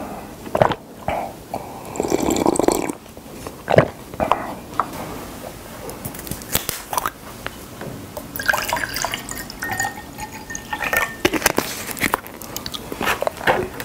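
Water poured from a plastic bottle into a drinking glass, splashing and filling for a couple of seconds past the middle, with plastic crinkles and bottle-cap clicks around it. Before that come a few gulps from a paper cup and a knock as the cup is set down.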